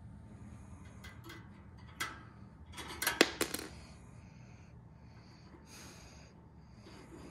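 A small metal key dropping onto a hard floor: a quick cluster of clinks and taps about three seconds in, the loudest sound, with a single knock a second before it, over faint room noise.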